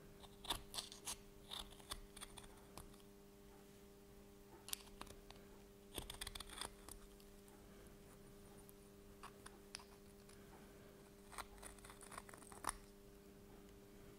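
Hand deburring tool's hooked swivel blade scraping the sharp edges of a steel plate: faint short scraping strokes that come in several groups, over a steady low hum.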